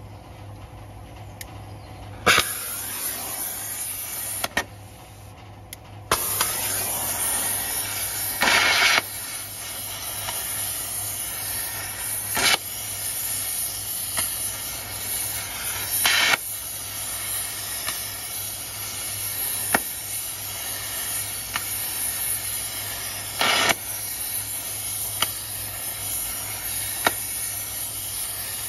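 Oxy-fuel gas torch flame hissing steadily as it heats seized wheel nuts to free them. It lights with a sharp click about two seconds in, dips briefly, then burns on, with a few short louder bursts.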